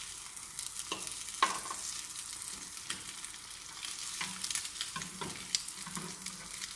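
Egg-dipped bread slices sizzling in butter in a grill pan, with a steady hiss. A metal spatula and fork scrape and click against the pan again and again as the slices are moved and turned.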